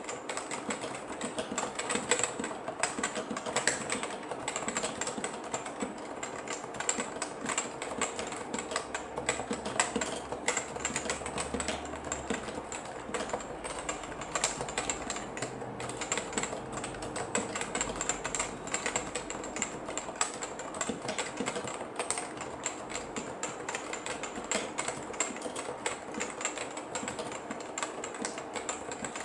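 Continuous typing on a Topre Type Heaven keyboard, with Topre capacitive switches and ABS keycaps: a dense, unbroken stream of keystrokes at a steady pace.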